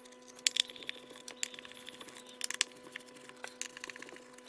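Screwdriver backing self-tapping screws out of the wooden cabinet of a speaker, giving light scattered clicks and scrapes, with small metal screws dropped onto a workbench.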